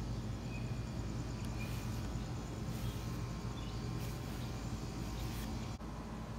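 Outdoor ambience: a steady low mechanical hum under a light hiss, with a few faint short bird chirps.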